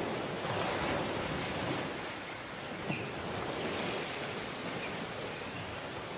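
Waves washing onto a tropical beach, the surf swelling and easing over a few seconds. A brief tick about three seconds in and a couple of faint short chirps sit over the surf.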